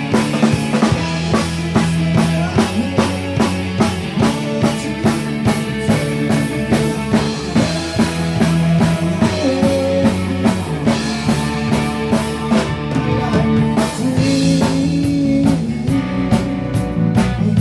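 A rock band playing an instrumental passage: a drum kit keeps a steady beat under sustained guitar chords.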